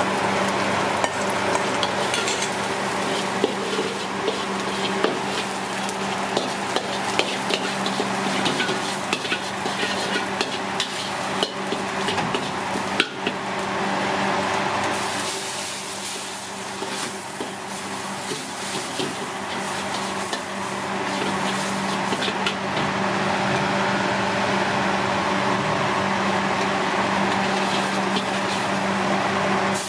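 Food sizzling in a hot pan while being stirred, with frequent sharp clicks of a metal utensil against the pan. A steady low hum runs underneath.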